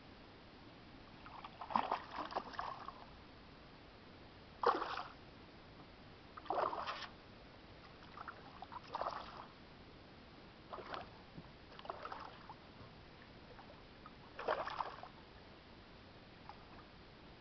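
Water splashing and sloshing at the side of a canoe in about eight short, irregularly spaced bursts.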